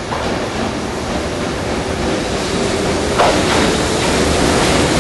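JR Freight EH500 electric locomotive approaching at the head of a container freight train: a steady rolling rumble that grows louder as it nears, with a sharp clank a little over three seconds in.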